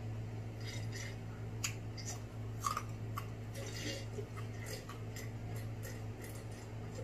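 Crab legs being eaten: scattered small clicks and cracks of shell and utensils, with chewing, over a steady low hum. The sharpest crack comes a little under three seconds in.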